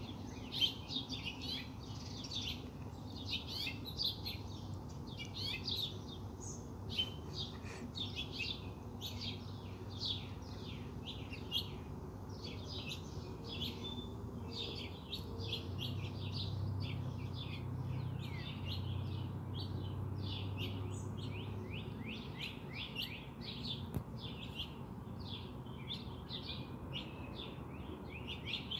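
Small songbirds chirping and tweeting continuously, many quick short chirps one after another. A low rumble swells and fades for several seconds in the middle.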